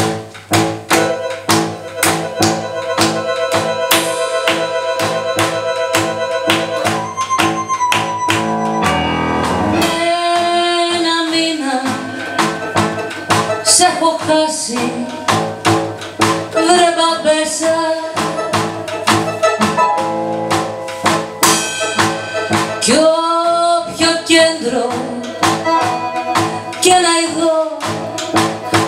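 Live band playing a tango-styled rebetiko song: accordion, drum kit and keyboard in a rhythmic instrumental opening, then a woman singing in Greek over the band from about ten seconds in.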